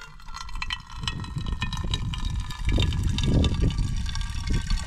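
A thin stream of water from a drum's tap running into a metal cooking pot that already holds water, splashing steadily. A low rumble swells in the middle.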